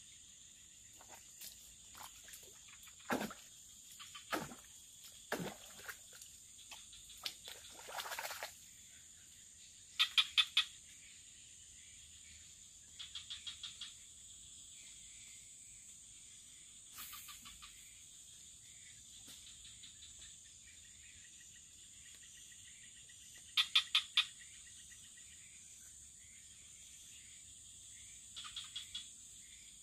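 Swamp ambience: a steady high-pitched insect drone, broken every few seconds by short bursts of four or five rapid pulsed animal calls, the loudest about ten seconds in and again near twenty-four seconds. A few knocks and one brief swish come in the first eight seconds.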